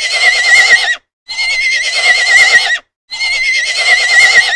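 A horse whinnying three times in a row. Each call lasts about a second and a half, with a quavering, wavering high pitch, and the three calls are alike.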